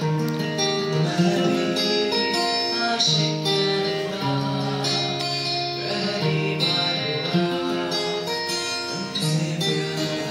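A man singing a slow melody with long held notes into a microphone, over acoustic guitar accompaniment.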